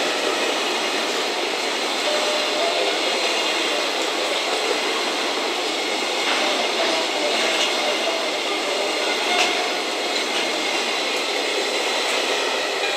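Container wagons of a freight train rolling steadily past at speed, a continuous wheel-and-rail noise with a few brief clacks from the wheels over the track.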